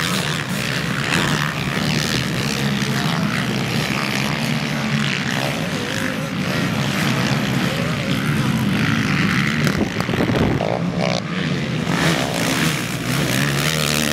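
Racing quad bike engines running at high revs, their pitch rising and falling with throttle and gear changes.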